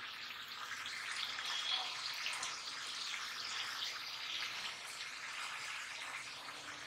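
Goat-head meat and onions sizzling in hot oil in an earthenware pot: a steady sizzle with faint scattered crackles.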